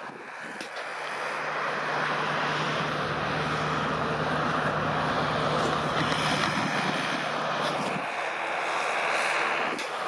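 Yanmar farm tractor running with its rear rotary tiller churning paddy soil: a steady low engine hum under a broad rushing noise. The hum drops away about eight seconds in.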